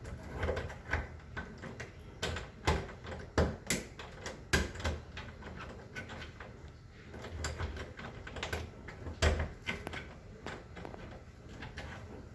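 Irregular clicks, taps and knocks of a lock being worked with picking tools, the lock and its handle rattling now and then.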